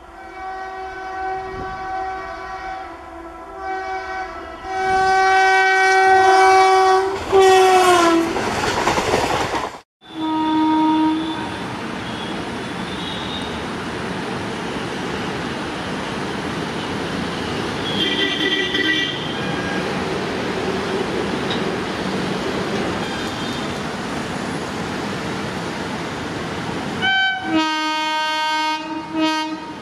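Electric locomotive's air horn sounding in several long blasts, its pitch dropping as the train passes. Then a steady rumble of the approaching WAP-7 electric locomotive and its train, with a short horn toot at the start of it and another long horn blast near the end.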